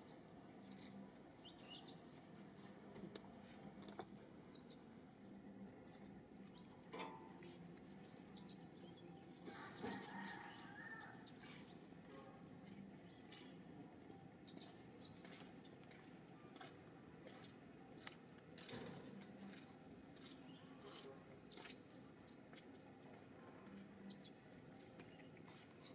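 Near silence: faint outdoor ambience with a few brief, faint chirps scattered through it.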